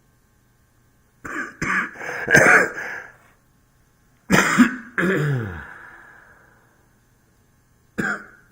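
A man coughing hard in three bouts: about a second in, about four seconds in, and again near the end.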